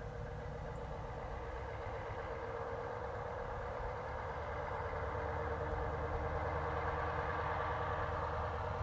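Distant heavy truck's diesel engine running steadily as the truck approaches slowly, growing gradually louder.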